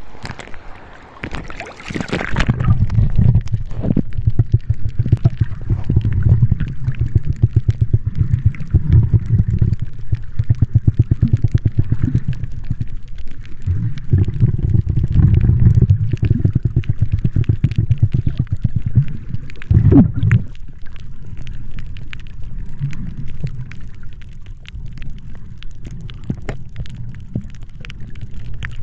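Water splashing at the surface for about the first two seconds, then the muffled low rumble and crackle of water moving around a camera held underwater, swelling and easing, with a stronger surge about twenty seconds in.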